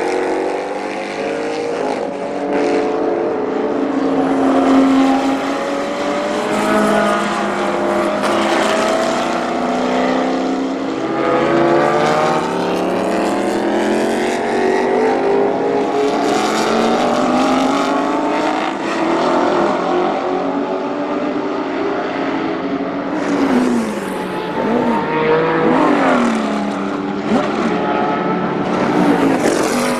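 Porsche 917 K racing cars' air-cooled flat-12 engines running hard, the pitch climbing through the revs and dropping back at each gear change, with more than one engine heard at once. There are a few quick sharp pitch drops a little past two-thirds of the way through.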